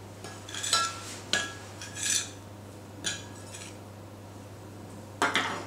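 A spoon stirring dry flours in a glass mixing bowl, scraping and clinking against the glass in several short strokes over the first three and a half seconds, then going quiet.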